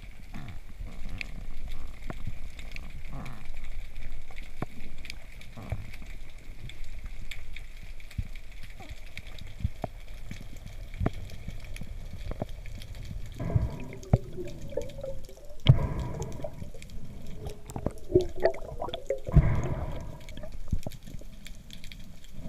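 Water heard through an underwater camera: a steady low rumble with many scattered sharp clicks, and bubbling, gurgling stretches about two-thirds of the way through.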